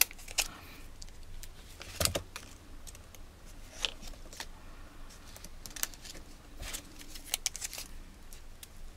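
Light handling sounds of mini glue dots being peeled from their roll and pressed onto cardstock petals with a paper piercing tool: scattered soft clicks and taps, the loudest about two seconds in.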